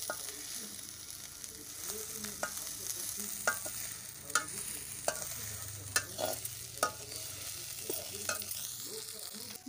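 Onion and spice masala sizzling in oil in an iron kadai while a metal slotted spatula stirs and scrapes it, clinking against the pan about once a second.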